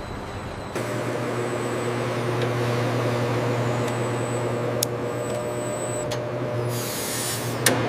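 Steady machine-shop hum over a wash of noise, stepping up in loudness under a second in. A few sharp metallic clicks are heard, and a short burst of hiss comes near the end.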